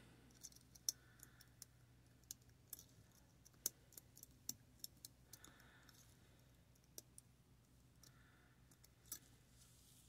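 Faint, irregular small metallic clicks and ticks from a lock pick on an RCS jackknife working in the keyway of a brass Master Lock V Line 50 mm padlock, with a few sharper ticks among them.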